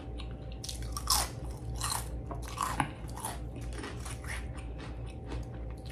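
Close-miked eating of ridged potato chips: an irregular run of crisp crunches as the chips are bitten and chewed, the loudest about a second in, two seconds in and near three seconds.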